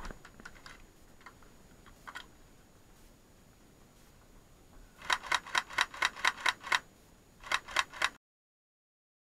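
Airsoft rifle firing two quick strings of shots, about a dozen sharp cracks at roughly seven a second and then five more, after a few faint clicks. The sound cuts off suddenly near the end.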